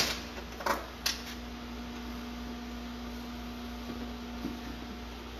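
Steady electrical hum in a workshop, with a sharp click at the very start and two softer knocks in the first second and a half.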